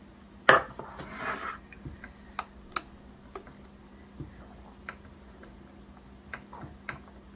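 A plastic measuring cup knocking and scraping against a metal cake pan while cake batter is scooped and poured. A sharp knock comes about half a second in, then a short scrape and scattered lighter clicks and taps.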